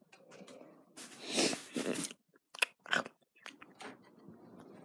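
Munching and chewing noises made with the mouth as eating sounds for a toy: a longer crunchy munch about a second in, then a few short wet smacks.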